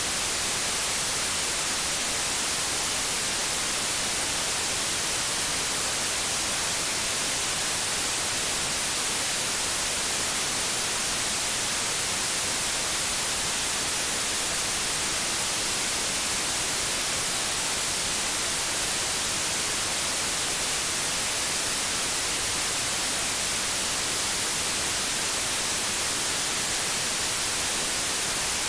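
Steady white noise: an even, bright hiss that does not change.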